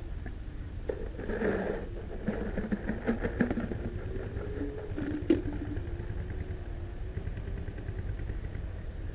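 Open-air paintball field noise on a player's body-worn camera: a steady low rumble, a stretch of scattered clattering early on, and one sharp crack about five seconds in.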